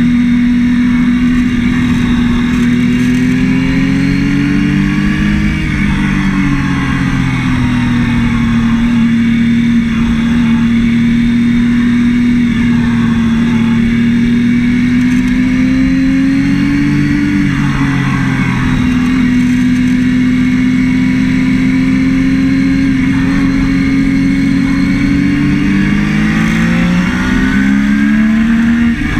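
Triumph Daytona 675's three-cylinder engine running hard at high revs, heard from on the bike. Its pitch holds steady for long stretches and rises three times, about five seconds in, around seventeen seconds and near the end, as the bike accelerates.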